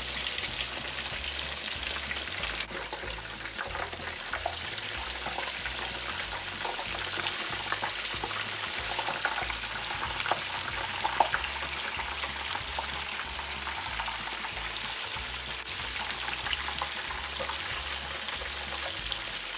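Whole floured red snapper deep-frying in hot peanut oil in a skillet: steady sizzling with many small crackles from the spattering oil.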